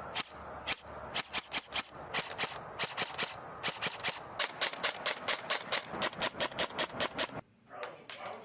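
Airsoft gun firing a rapid string of sharp shots, about four or five a second, stopping about seven seconds in.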